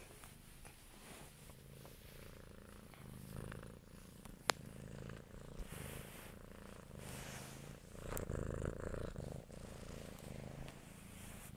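Domestic cat purring steadily, its rumble pulsing in a regular rhythm, with fur rubbing against the phone's microphone. There is a sharp click a little before halfway and a louder stretch of rubbing about two-thirds through.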